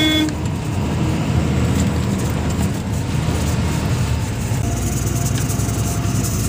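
Truck engine running and tyres on the road, heard from inside the cab as a steady low rumble while the truck drives slowly. A horn note cuts off just as it begins.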